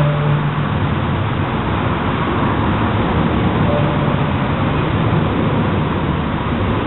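Steady noise of road traffic, with a faint short tone near the start and again about halfway through.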